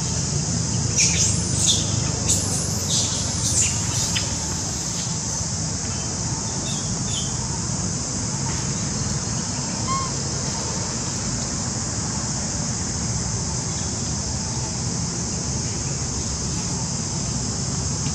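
Outdoor ambience of a steady high-pitched hiss, with a quick flurry of short, very high chirps or squeaks in the first few seconds and a few faint calls later.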